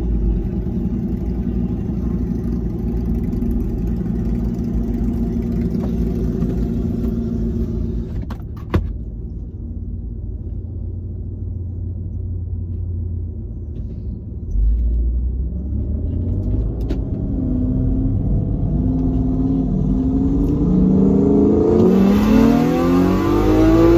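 Supercharged V6 of a modified 2015 Audi S5, heard from inside the cabin: running steadily at low revs, with a sharp click about nine seconds in. From about sixteen seconds in the engine note climbs in pitch and grows louder as the car accelerates hard in a roll race.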